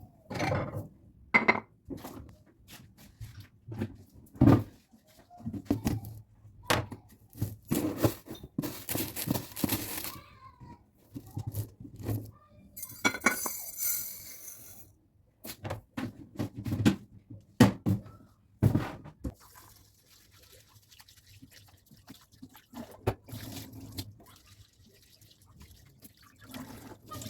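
Washing up at a kitchen sink: dishes and utensils knock and clatter against each other and the sink, and the tap runs in short spells, most strongly about a third and half of the way through.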